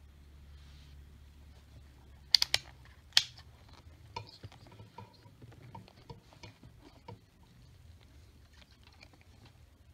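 Three sharp plastic clicks from a handheld digital multimeter being switched off and moved, then a run of lighter clicks and rattles as its test leads and probe tips are handled, over a faint low hum.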